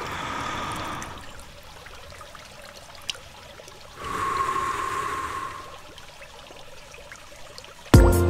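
Pool water trickling and lapping softly, with two breathy swells of a swimmer's heavy breathing, one at the start and one about four seconds in. Loud electronic music with a heavy beat cuts in near the end.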